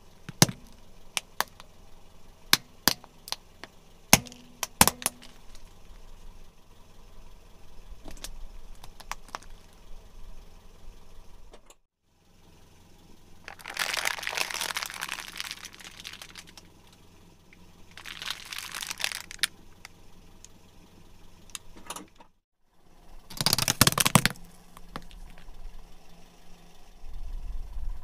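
Car tyre rolling slowly over plastic toys on asphalt: a string of sharp cracks and snaps as a plastic action figure breaks under it, then crinkling and crackling of plastic blister packaging and card being crushed, in three loud bursts.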